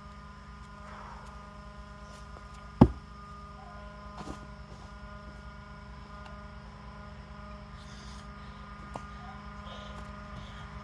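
A single sharp axe strike into a box elder log about three seconds in, with a couple of faint knocks later. A steady low hum sits underneath throughout.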